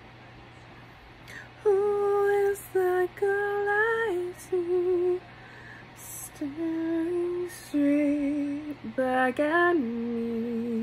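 A woman humming a slow tune unaccompanied, in long held notes that step between pitches and settle lower near the end.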